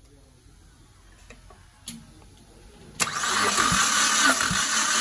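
Mitsubishi 4B10 1.8-litre four-cylinder engine being cranked for a compression test on its fourth cylinder. The cranking starts suddenly about three seconds in, a steady whirr with low thumps about once or twice a second. A few faint clicks come before it.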